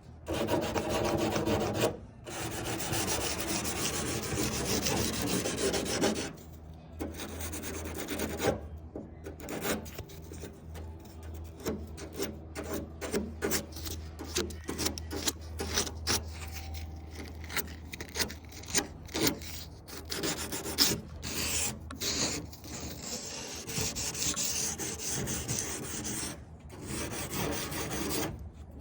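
Fine-grit aluminium-oxide plumber's emery cloth rasping along the rough edge of a Tesla Cybertruck's stainless steel body panel, sanding it smooth. Two long passes at first, then many short quick strokes, and a longer spell of rubbing near the end.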